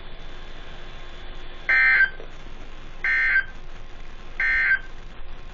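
Three short bursts of screechy data tones over a NOAA Weather Radio broadcast: the EAS/SAME end-of-message ("NNNN") code, sent three times to close the watch message. A steady hiss lies underneath.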